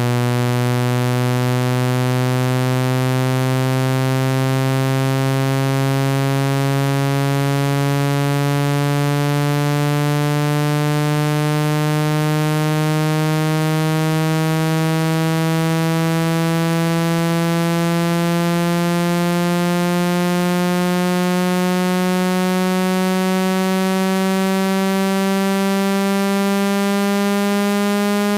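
Synthetic buzzy test tone with many overtones, played to vibrate water out of a phone speaker; its pitch climbs slowly and evenly, from roughly 125 Hz to about 200 Hz.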